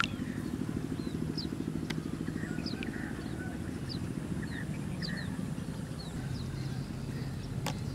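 An engine running steadily, a low even hum, with short high chirps scattered over it.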